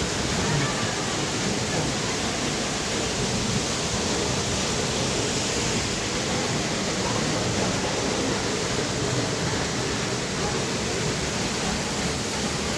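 Waterfall water rushing down, a steady, even noise that holds constant throughout.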